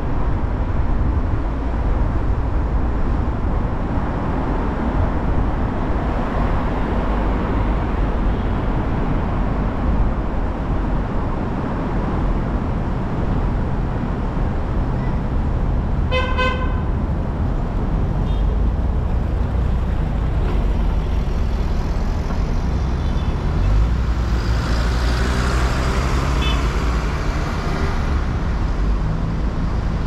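Road noise from a moving vehicle in traffic: a steady low rumble of engine and tyres, with one short car-horn toot about halfway through. The noise swells for a few seconds near the end.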